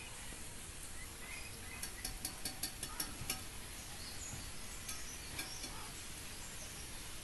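Steady outdoor background hiss with a few faint bird chirps, and a quick run of sharp clicks about two to three seconds in.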